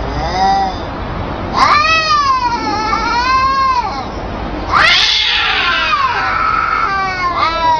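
Domestic cats caterwauling in a fight standoff: long, drawn-out yowls that rise and fall in pitch, one after another, with a harsh, noisy screech or hiss about five seconds in.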